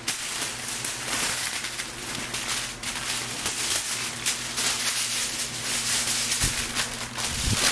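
Aluminium foil crinkling and rustling in many small irregular crackles as it is handled, smoothed and pressed around a box being wrapped.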